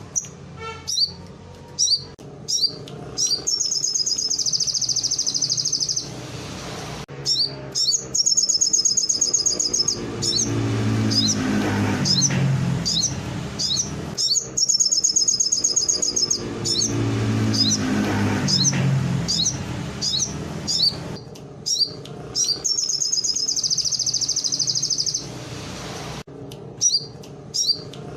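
Sogon songbird singing canary-style song: runs of sharp, high chirps, each leading into a fast, even trill held for about two seconds, repeated about four times. A low rumble swells twice in the background midway.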